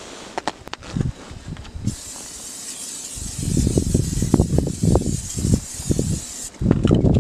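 Aerosol can of cooking spray hissing onto a camp stove griddle: one steady spray of about four and a half seconds that cuts off sharply, with irregular low rumbling underneath.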